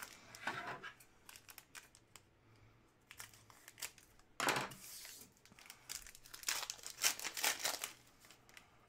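Hockey card pack wrappers crinkling and tearing as packs are opened by hand, in scattered bursts with a louder one about halfway through and a busier stretch soon after.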